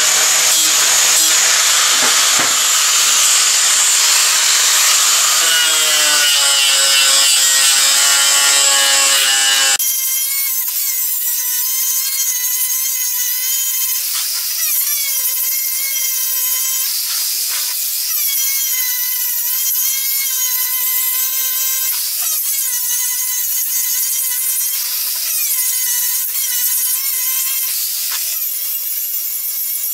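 Angle grinder working steel flat bar: for about ten seconds the disc bites hard into the steel with a loud, harsh screech. The sound then changes abruptly to the grinder's steady motor whine, which sags briefly in pitch every few seconds as the disc is pressed onto the bar.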